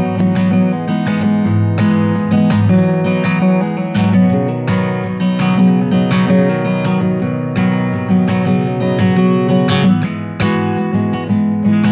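Background music: a strummed acoustic guitar playing steadily.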